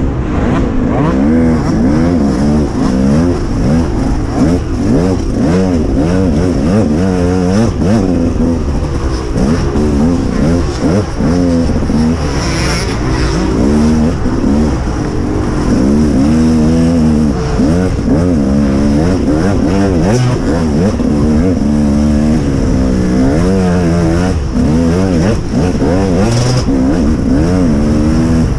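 Motocross dirt bike engines at race pace, revving up and falling back again and again, the pitch rising and dropping every second or two.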